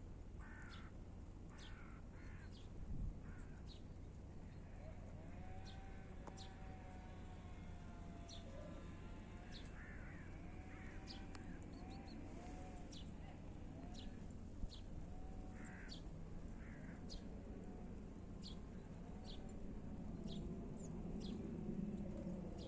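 Birds calling outdoors: short high chirps repeat about once a second, with lower, wavering calls in between, over a faint steady low rumble.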